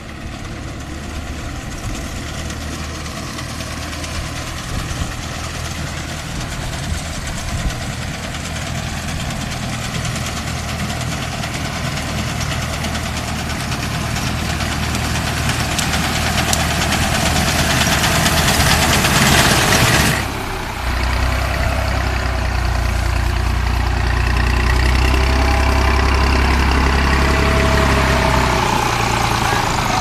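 Tractor's diesel engine running as it drives a front-mounted reaper through standing wheat, getting louder as it approaches. A hiss builds before an abrupt break about two-thirds through, followed by a louder, deeper engine rumble close by.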